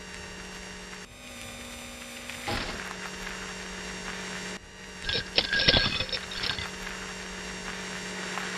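Steady electric hum of a robot sound effect, with a burst of quick mechanical clicks and whirs about five seconds in.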